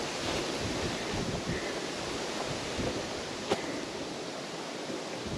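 Steady wind, gusting and buffeting the microphone, with a single sharp click about three and a half seconds in.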